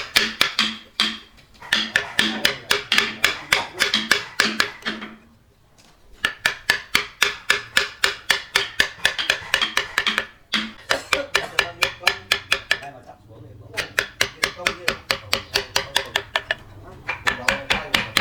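Rapid, even strikes of a tool on wood, about five a second, in runs broken by short pauses.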